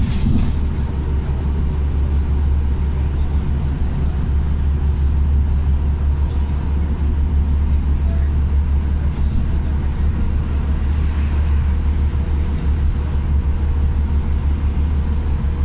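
Cabin noise inside a Scania Omnicity diesel single-decker bus cruising at speed: a steady low drone of engine and road noise, with a few light rattles now and then.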